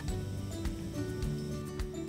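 Background music: held instrumental notes over a steady light beat.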